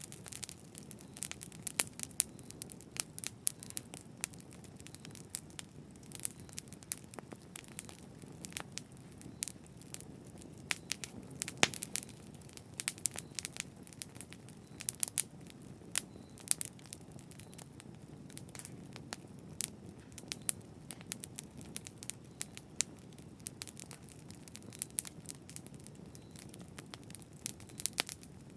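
Campfire burning: a low steady rush of flames with frequent sharp, irregular crackles and pops of burning wood.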